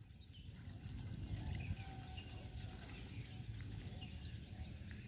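Outdoor rice-paddy ambience: a steady low rumble with faint, short high-pitched animal chirps repeating throughout.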